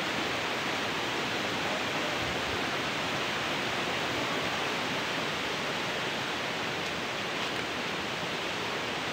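Steady, even rush of water from a shallow rocky stream with small cascades.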